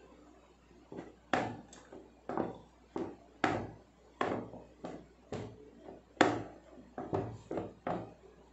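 Wooden rolling pin rolling dough thin on a wooden chopping board, knocking against the board with each stroke: a string of sharp wooden knocks, about two a second, starting about a second in.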